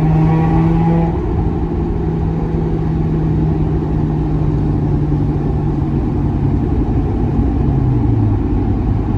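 Early Mazda RX-8's two-rotor rotary engine, breathing through a Maxim exhaust manifold, SARD catalytic converter and R-magic tuned silencer, heard in a tunnel. The steady exhaust note holds its pitch, then drops in steps near the end as the revs fall.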